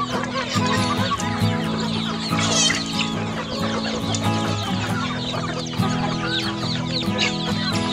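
A flock of chickens and young chicks clucking and peeping while they feed, many short high calls overlapping. Background music with sustained low chords plays under them.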